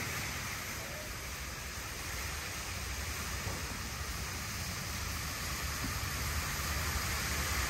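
Steady, even background noise: a low rumble and hiss with no distinct events.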